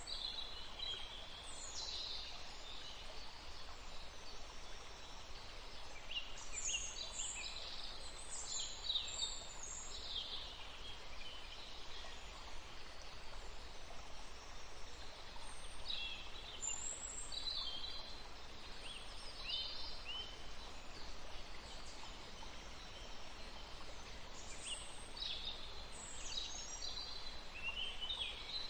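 Wild birds chirping and calling in several bursts over a steady background of outdoor noise.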